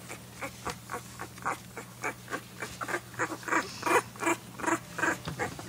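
A 19-day-old puppy eating gruel from a bowl: quick, wet smacking and slurping sounds, about four a second, uneven in loudness.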